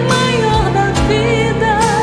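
A song with a singer's voice holding wavering notes over a full band, with drum beats marking the rhythm.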